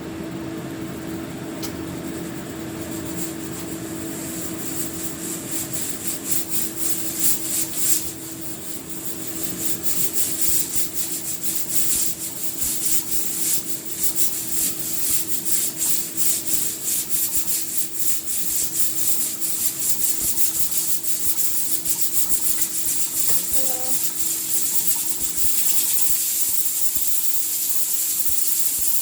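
Pot cooking on the stove, giving a scratchy hiss and sputter that grows stronger toward the end, over a steady low hum.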